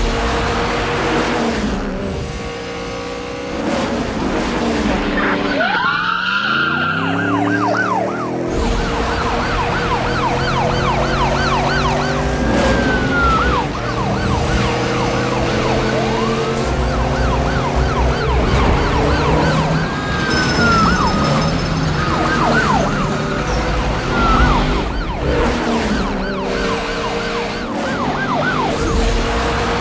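Police siren yelping, rising and falling several times a second, with a slower wail every so often, over steady engine and vehicle sound. A deep falling sweep comes early.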